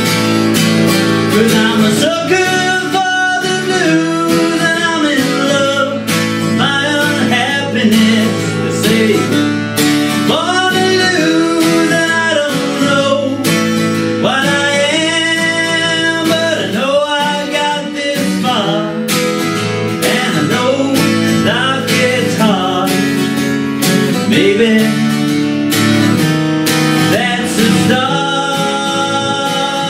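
A man singing a country-blues song over a strummed twelve-string acoustic guitar.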